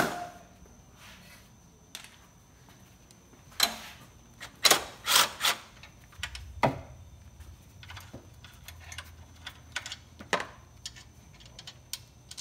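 Sharp metal clicks and clinks as a socket and nuts are handled on a car's strut tower. A short low whir in the middle comes from a Harbor Freight cordless 3/8-inch impact wrench running a strut-top nut.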